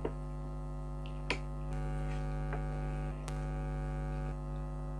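Air conditioner running with a steady, unchanging hum, with a few small clicks over it.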